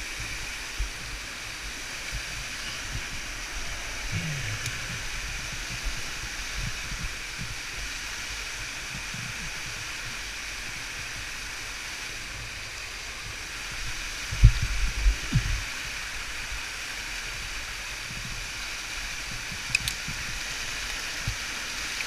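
Cautley Spout waterfall rushing steadily, with a few low thumps about two-thirds of the way through and a sharp click near the end.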